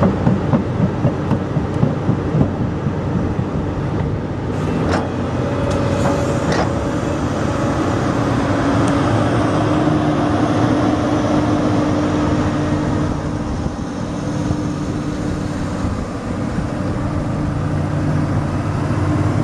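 2004 Link-Belt 330 LX long-reach excavator's diesel engine running steadily under working load, with a rapid metallic clatter of the steel tracks in the first few seconds and two sharp clanks around five and six and a half seconds in. The engine note rises slightly about ten seconds in as the upper body swings.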